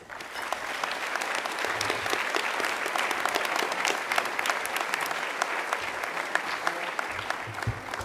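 Audience applauding: steady, dense clapping that comes up quickly and fades away near the end.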